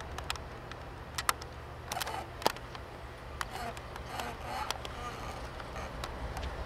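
Steady low diesel rumble of an approaching CSX freight train's locomotives, with scattered short clicks and knocks over it.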